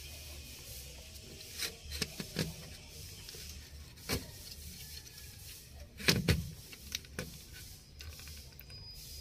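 Handling noise from work on a car's steering-column horn contact and turn-signal switch: scattered clicks and knocks of parts and wiring being moved, the loudest knocks about six seconds in, over a steady low hum.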